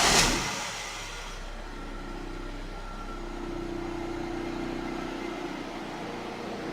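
Fiat Fiorino 1.4 Evo engine just after starting: a loud burst of revs in the first half-second falls away to a steady idle.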